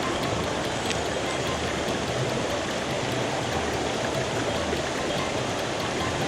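Mountain stream water rushing steadily over rocks, an even hiss with no breaks.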